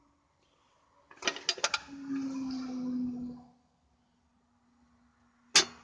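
The cooker with its RidgeMonkey pan is slid back into place. A quick clatter of knocks about a second in is followed by a rumbling slide of about a second and a half, and there is a single sharp click near the end.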